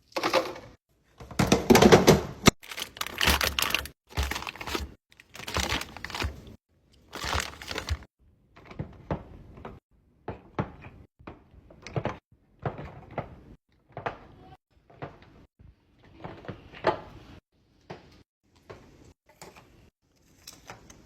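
Snacks and drinks being restocked by hand: a dense run of knocks, clatters and rustling early on, then a string of separate light knocks and clicks as items are set down one by one.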